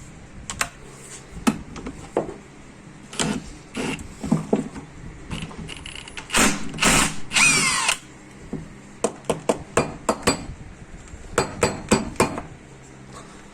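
A power tool runs for about a second and a half on the rack's 17 mm fastener, its whine falling as it stops. Sharp metal clicks and knocks from handling tools and rack parts come before and after.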